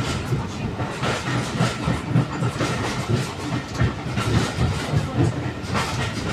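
Railway passenger carriage running at speed, its wheels clicking over the rail joints over a steady rumble.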